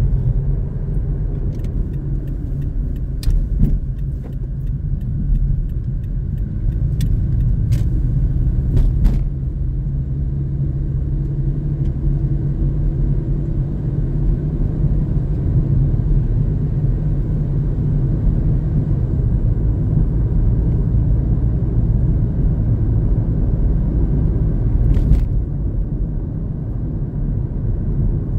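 A car driving at road speed, heard from inside the cabin: a steady low rumble of engine and tyres. A scattered handful of light clicks or knocks comes in the first nine seconds or so, and one more about 25 seconds in.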